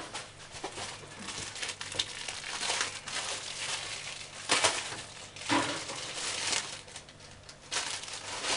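Plastic packaging being handled, rustling and crinkling in irregular bursts, the loudest a little after four seconds and again at about five and a half.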